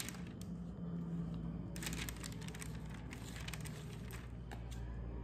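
Baking parchment crinkling in bursts as it is pressed and smoothed into a baking tray, over a steady low hum.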